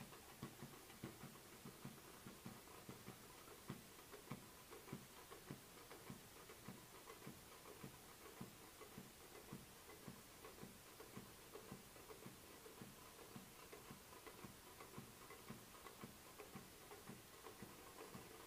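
Faint, steady drumming by street drummers, about three beats a second.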